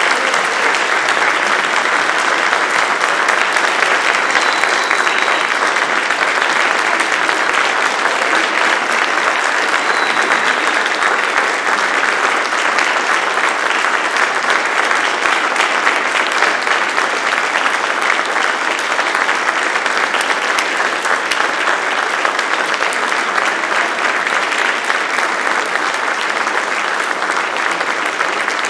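A large audience applauding steadily in a standing ovation, a dense continuous clapping that holds at the same level throughout.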